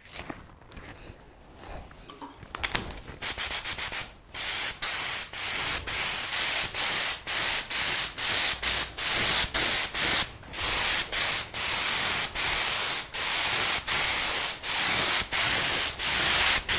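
HVLP spray gun hissing as it sprays base coat. The hiss starts about three seconds in and is broken by brief gaps roughly twice a second.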